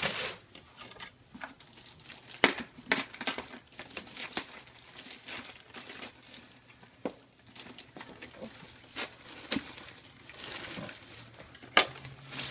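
Packing materials being handled in a cardboard shipping box of books: clear plastic wrapping and packing paper crinkling and rustling in irregular bursts, with sharp crackles, the loudest about 2.5 s in and near the end.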